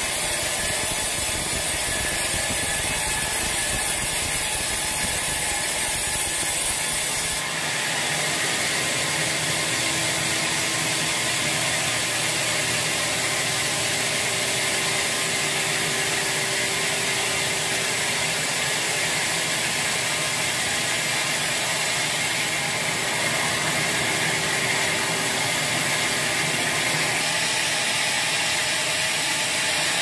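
Band sawmill blade running steadily through a large teak log. About seven seconds in the sound changes abruptly and loses its low rumble.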